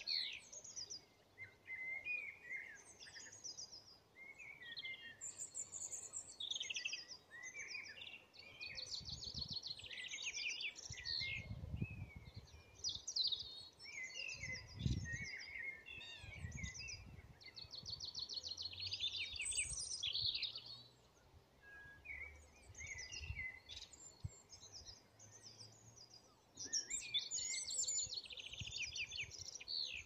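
Songbirds singing, one phrase after another, many of them fast trills of repeated high notes mixed with warbling. A few low rumbles come in around the middle.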